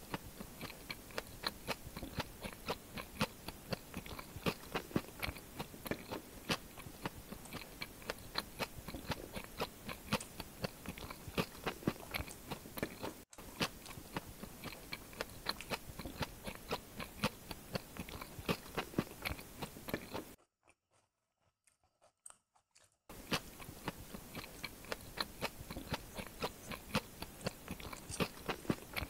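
Close-miked chewing of luchi with ghugni: a dense run of wet mouth clicks and soft crunches, which stop for about two and a half seconds past the middle and then start again.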